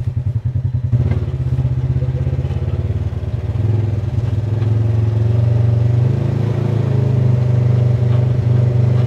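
Side-by-side off-road vehicle engine, with a slow pulsing for about the first second, then a steady drone that grows louder as the vehicle gets under way.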